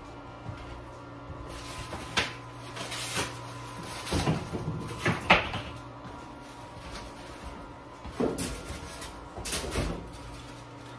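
White foam packing panels being pulled off a boxed humidor and handled: a series of irregular scrapes, knocks and thuds, the loudest about five seconds in.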